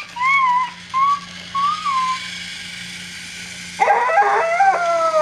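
A person whistles a short wavering tune for about two seconds. A battery-powered TrackMaster toy engine's motor then whirs steadily as it climbs the track, and a high voice cries out near the end.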